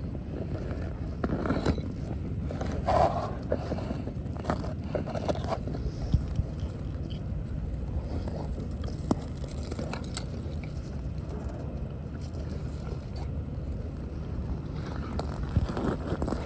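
Dogs rolling and scuffling in snow on their leashes: scattered scrapes and rustles, busiest in the first few seconds, over a steady low rumble.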